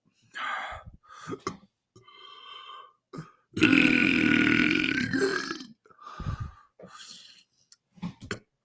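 A man belching: a loud, long belch of about two seconds midway, with several shorter belches before and after it.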